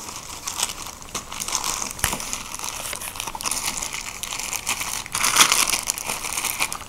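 Clear plastic bag crinkling and rustling as hands fold it around a pack of firework tubes. The crinkling is irregular throughout and loudest about five seconds in.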